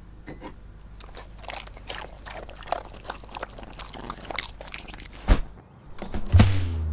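A cat eating food off a plate, with irregular wet chewing and crunching clicks. A sharp thump comes about five seconds in, and a louder low thud near the end.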